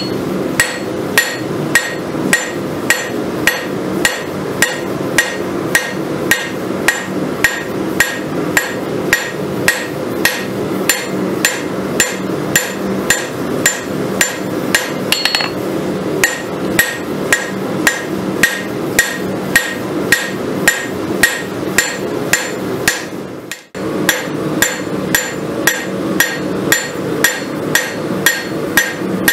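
Hand hammer beating red-hot steel, a farrier's rasp being rough-forged into a kukri blade, on an anvil. Steady blows about two a second, each with a short metallic ring, over a steady drone, with one brief break about 24 seconds in.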